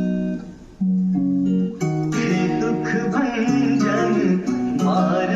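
Instrumental intro of a Hindi devotional song: held chords with plucked guitar, changing chord about a second and again about two seconds in, after which a fuller arrangement comes in.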